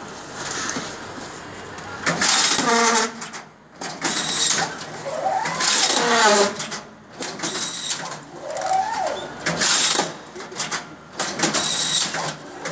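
Fully automatic strapping machine running through repeated strapping cycles, one every two seconds or so. Each cycle has a motor whine that rises and falls in pitch as the strap is fed and pulled tight, and a short burst of hissy mechanical clatter.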